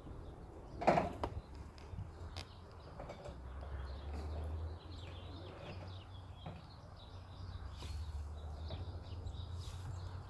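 Outdoor ambience: faint bird chirps over a steady low rumble, with one brief knock about a second in.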